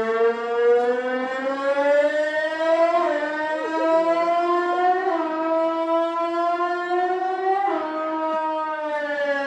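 Sahur wake-up siren wailing. Its pitch climbs slowly with three small sudden jumps, then falls near the end, so that it sounds like a racing motorbike going up through its gears.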